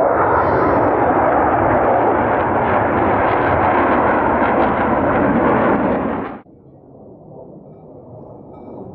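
Jet aircraft passing overhead: loud, steady rushing engine noise that cuts off abruptly about six and a half seconds in, leaving only a faint background.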